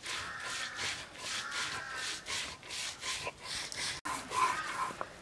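A stone roller grinding wet spice paste on a flat grinding stone (shil-pata): rhythmic back-and-forth scraping strokes of stone on stone through the paste, about three a second. A short, louder, higher-pitched sound comes about four seconds in.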